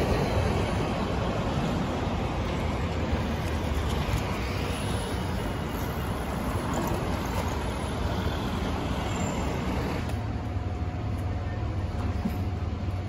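City street traffic: cars and vans driving past on the road, a steady hum of engines and tyres, a little louder at the start.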